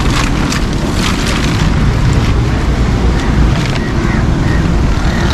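Wind buffeting the camera microphone, a steady low rumble, with a few brief rustles or knocks near the start and again later.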